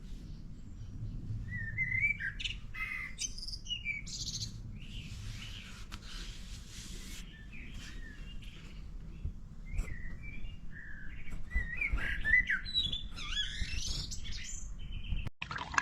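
Birds chirping and calling, with many short chirps that rise and fall in pitch, over a low steady rumble.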